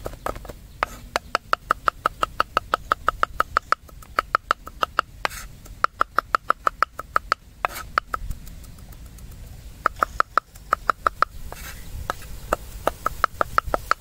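A cleaver rapidly chopping garlic on a wooden chopping board: quick, even knocks about seven a second, in runs of a few seconds with short pauses between them.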